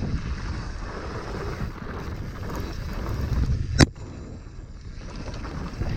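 Wind buffeting the microphone of a helmet chin-mounted camera, over low rumble from a hardtail mountain bike rolling down a rough, chattery trail. One sharp knock nearly four seconds in.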